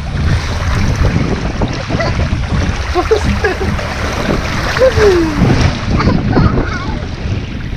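Water rushing and rumbling as riders slide down an open plastic water slide, with wind buffeting the microphone. A few brief squeaks cut through, one falling squeak about five seconds in.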